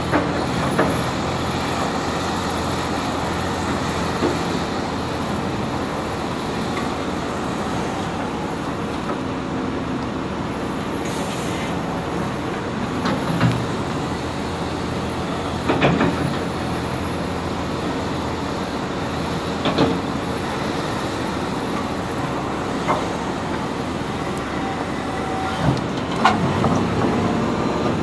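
Cat 336E hydraulic excavator at work, its diesel engine and hydraulics running steadily under load as it digs and swings the bucket. Several sharp clunks of the bucket and dirt break in, the loudest about halfway through and near the end.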